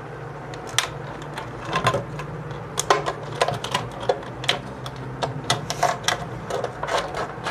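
Thin plastic of an empty soft-drink bottle crackling and clicking as it is squeezed and cut with scissors to make a hole. The crackles are irregular, sparse at first and much more frequent from about three seconds in, over a low steady hum.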